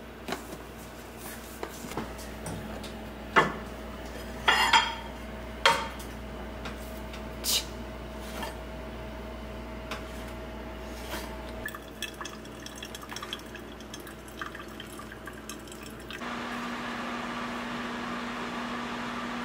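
Kitchen handling sounds: dishes and utensils clinking and knocking, with liquid pouring and dripping, several sharp clatters in the first eight seconds. About sixteen seconds in, a steady hum sets in and holds.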